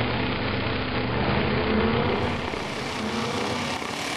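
Several demolition-derby pickup truck engines running and revving together as the trucks push against each other, a steady mix of engine noise with no single crash standing out.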